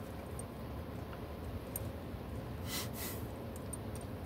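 Steady low hum inside a car cabin, with a Basenji dog sniffing sharply twice in quick succession about three seconds in.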